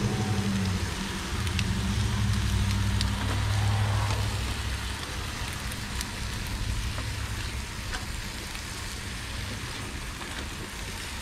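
Sausages, ham slices and onions sizzling on a gas grill's grill pan, a steady crackling hiss. A low rumble underneath fades out about halfway through, and a few light clicks of metal tongs come in.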